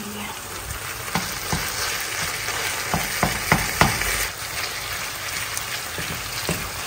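Ground meat and sliced onions sizzling in a stone-coated non-stick wok while a plastic spatula breaks up and stirs the meat. The spatula's taps and scrapes against the pan come thickest and loudest a few seconds in.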